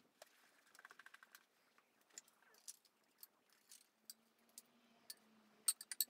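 Faint clicks and light knocks of a Flemish bagpipe's wooden pipes being pulled apart and handled as the instrument is taken to pieces. There is a quick run of small clicks about a second in and a cluster of sharper clicks near the end.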